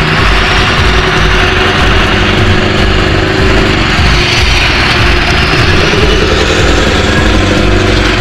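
Scania R560's V8 diesel running steadily through a straight-pipe exhaust as the truck and full trailer drive past.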